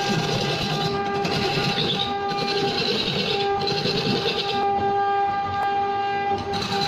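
Electric wood lathe running with a steady motor whine while a hand-held chisel cuts a spinning wooden cylinder, giving a scraping hiss in passes of about a second. The cutting stops for about two seconds in the second half and starts again near the end, leaving only the motor's whine in between.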